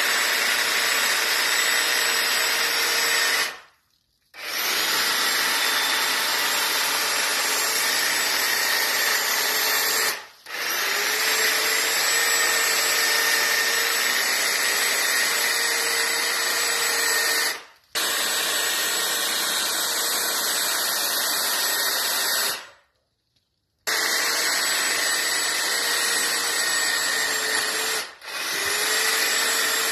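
Corded electric hedge trimmer running at full speed with a steady whine as it trims a tall conifer. It stops and restarts about five times, twice for about a second, and each time rises in pitch as it spins back up.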